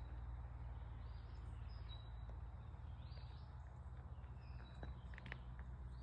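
Quiet outdoor ambience: a few faint, high bird chirps over a steady low rumble.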